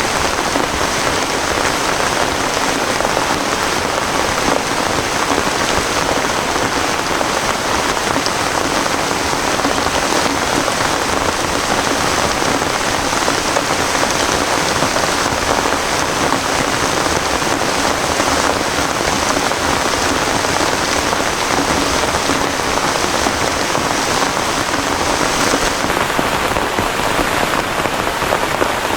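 Heavy rain falling steadily, a dense, even pattering of drops on surfaces.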